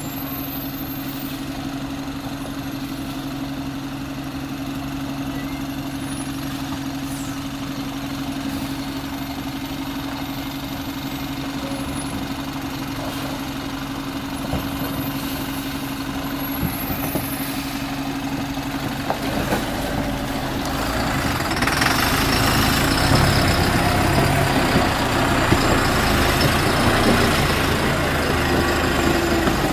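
Diesel engine of a heavily loaded truck running steadily at low revs as it crawls through deep mud. About twenty seconds in the sound grows louder and rougher as the truck comes right alongside, its wheels working through mud and water.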